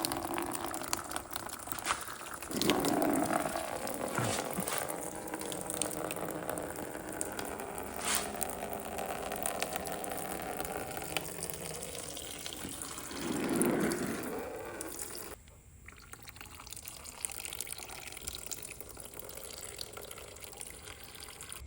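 Engine coolant pouring out of a dirt bike's drain plug hole into a bucket, a steady splashing stream. It goes noticeably quieter about fifteen seconds in.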